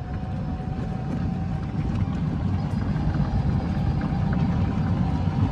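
Electric golf cart on a paved path: a steady low rumble with a faint, even whine throughout.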